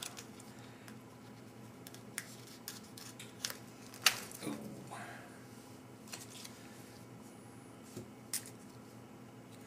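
Light handling sounds of a knife and a small food pouch: a few scattered clicks and taps, the sharpest about four seconds in, over a low steady hum.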